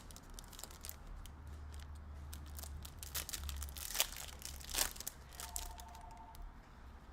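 Packs of trading cards being torn open, with the wrapper crinkling and rustling in irregular handfuls. A brief faint two-note beeping comes in about five and a half seconds in.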